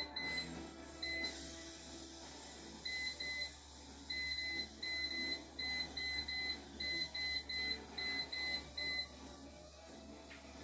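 A kitchen appliance's electronic control panel beeps as its buttons are pressed repeatedly: about twenty short, identical high beeps, mostly in quick pairs and triples, stopping about nine seconds in.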